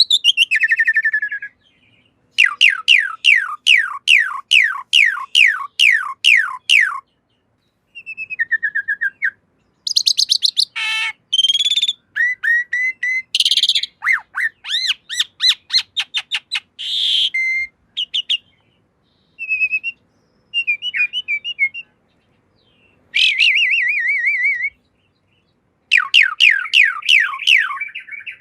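Pied myna (jalak suren) singing: runs of rapid downward-sweeping whistles, about three a second, broken by short gaps and mixed with varied chirps and harsher notes.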